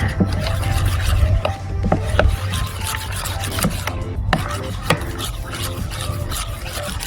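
A utensil scraping and knocking around a bowl as a thick yogurt-and-cream spice marinade is beaten, in quick irregular strokes.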